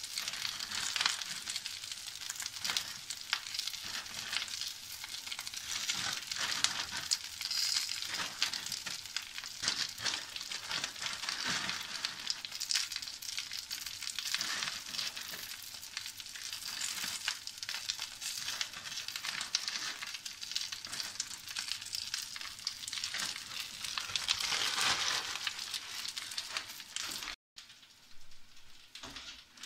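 Chopped cavolo nero (Tuscan black kale) sizzling and crackling in a frying pan, with many small pops. The sound drops out abruptly near the end and then carries on fainter.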